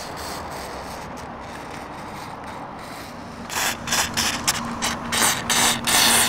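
Aerosol can of adhesive remover spraying through its red extension straw in a series of short, spitting hisses, starting about halfway through and getting louder near the end, as it is worked around the edge of a deck puck to loosen the caulking under it.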